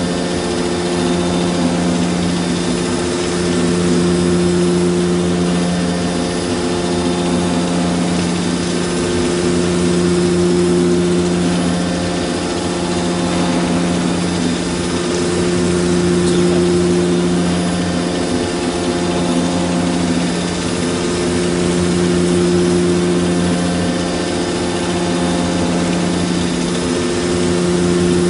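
FERMAT WRF 130 CNC horizontal boring mill running during boring and milling, a steady machine hum that swells and eases about every six seconds.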